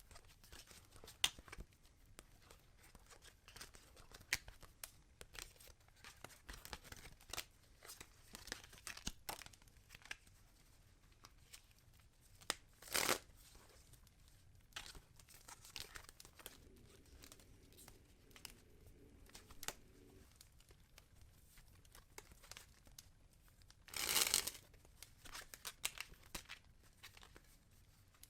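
A deck of tarot cards being shuffled by hand: irregular soft flicks and rustles of card stock, with two louder rushes of shuffling about 13 and 24 seconds in.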